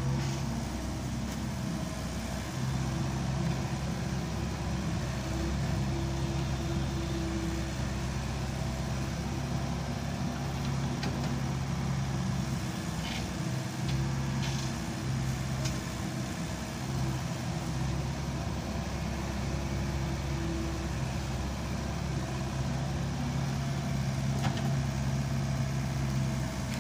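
Small Volvo excavator's diesel engine running steadily as it digs and loads garbage, with a few short knocks from the bucket and the load partway through and again near the end.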